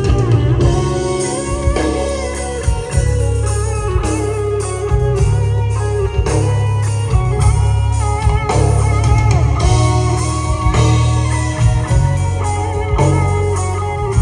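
A band playing an instrumental passage: electric guitar over bass guitar.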